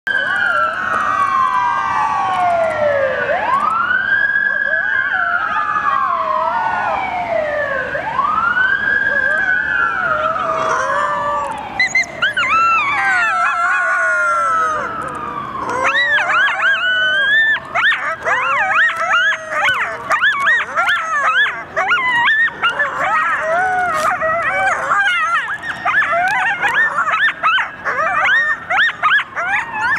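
An emergency siren wails in slow rising and falling sweeps. About twelve seconds in, coyotes start howling in answer to it, and from about sixteen seconds a dense chorus of overlapping quavering howls and yips takes over.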